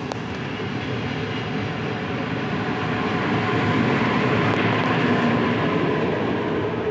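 Double-deck electric passenger train pulling out of the station and passing close alongside the platform, its wheels rolling on the rails in a steady noise. The noise grows louder to a peak about four to five seconds in, then eases as the last carriage goes by.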